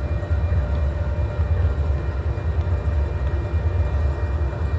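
Diesel locomotive idling close by: a steady low rumble.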